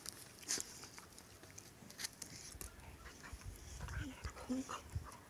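Two young dogs play-fighting: scuffling and sharp clicks throughout, with a few short low growls about four seconds in.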